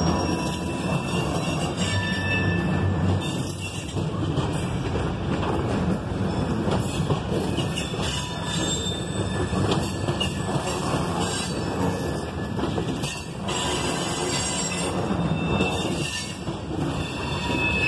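Herzog ballast hopper cars of a freight train rolling past, a steady rumble and rattle of steel wheels on the rails, with a faint high wheel squeal now and then.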